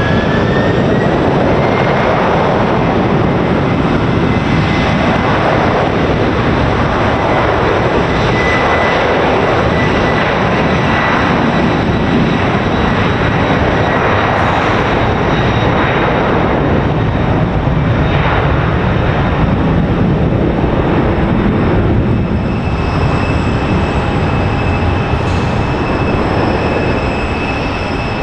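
Jet airliner engines running with a loud, continuous roar. A high whine rises a little in pitch near the start and then holds steady.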